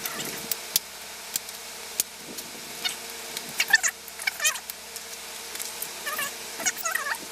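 Plastic clicks and short squeaks as a laptop keyboard is pressed and snapped into place in a ThinkPad T430's plastic chassis, the squeaks bunching together about four seconds in and again near the end.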